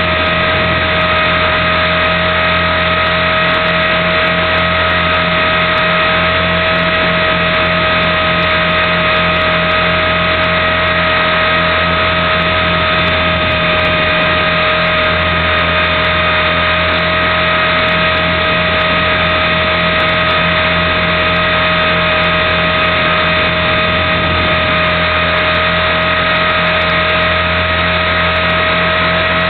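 Align T-Rex 450 Pro electric RC helicopter running at a constant head speed: a steady, unchanging whine from its brushless motor and gears, with rotor noise underneath.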